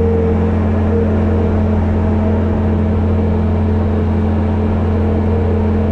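An engine running steadily at constant speed: a deep, loud hum with a few fixed higher tones over it.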